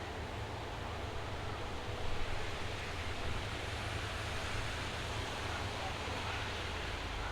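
Rain shower falling steadily: an even hiss with a low rumble underneath, briefly swelling a little about two seconds in.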